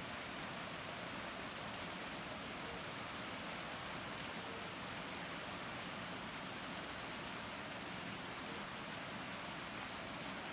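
Waterfall water rushing as a steady, even hiss.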